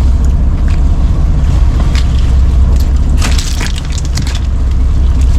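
Fishing boat's engine running with a steady low drone, under sharp knocks and rattles of fishing gear being handled, most of them about three seconds in.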